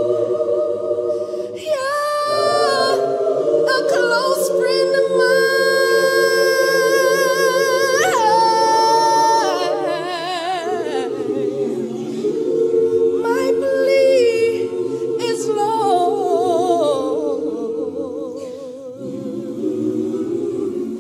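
A cappella group of voices singing a slow hymn in harmony, with long held notes that waver with vibrato and phrases that break and start again twice.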